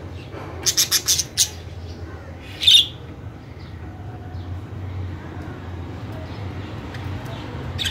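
Budgerigars squawking: a quick run of about five short harsh notes about a second in, then one louder squawk near three seconds, over a low steady hum.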